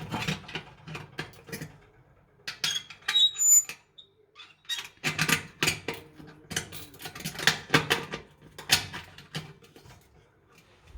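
Parts of a shashlik skewer rack being handled and fitted together: irregular clicks, rattles and scrapes, with a few short high squeaks about three seconds in and a brief pause around four seconds.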